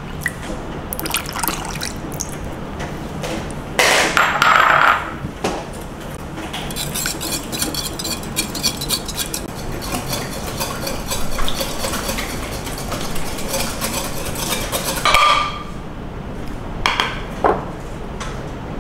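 Liquid poured into a glass mixing bowl over an egg. Then a wire whisk beats the batter, its wires rattling fast and evenly against the glass for several seconds, with a few knocks of utensils near the end.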